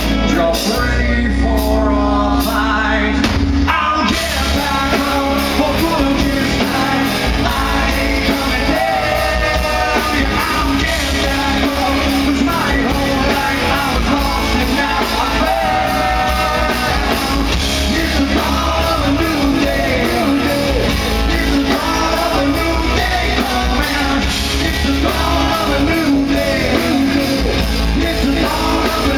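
Live rock band playing loud, with a male lead singer singing over electric bass, guitar and drums. The cymbals fill in more fully about four seconds in.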